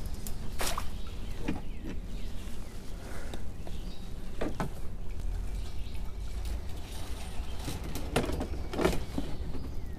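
Handling noises in a kayak: a handful of short clicks and knocks as a just-caught bass is held and the lure is worked loose, over a steady low rumble.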